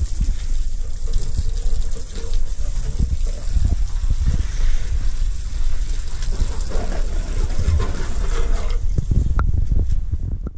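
Water gushing from a hose and splashing onto the ground, with a steady low rumble underneath.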